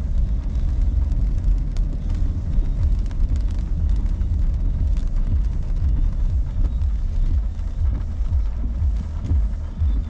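Car driving on a wet road, heard from inside the cabin: a steady low rumble of engine and tyres, with a few faint ticks.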